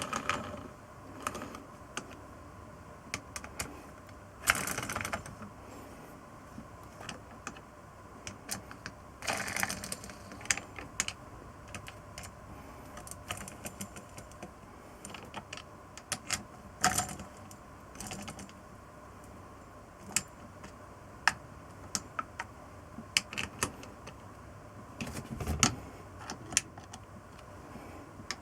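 Irregular small clicks, taps and knocks of metal parts and hand tools being handled during engine assembly, with a few longer handling noises in between.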